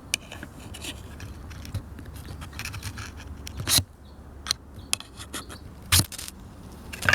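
Ferro rod struck with the awl of a Victorinox Pioneer Swiss Army knife: a series of short, sharp scrapes, the two loudest about halfway and about six seconds in, throwing sparks onto fluffed jute tinder, which catches at once.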